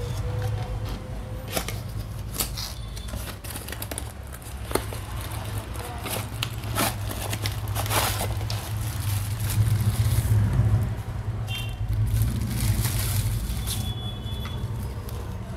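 Cardboard box and plastic packaging being handled as a mini fan is unpacked: irregular scrapes, clicks and crinkling of the plastic bag, busiest past the middle, over a steady low hum.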